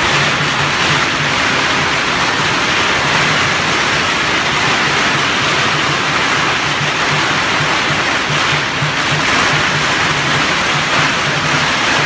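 Chinese lion-dance percussion: a steady, regular drum beat under a dense, continuous crash of cymbals and gongs.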